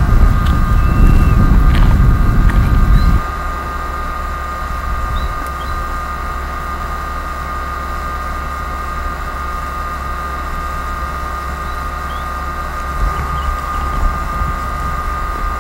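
Wind buffeting the microphone with a heavy low rumble, cutting off abruptly about three seconds in. After that a steady high whine continues with a few faint short chirps.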